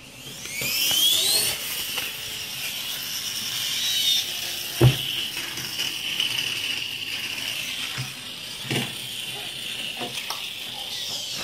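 Small electric motor of a battery-powered toy monster truck spinning up with a rising whine, then whirring steadily at a high pitch. A sharp thump about five seconds in and a lighter knock near nine seconds.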